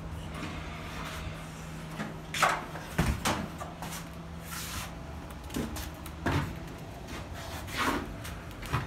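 Electric forklift humming, with a handful of sharp knocks and scrapes. The hum stops about halfway through.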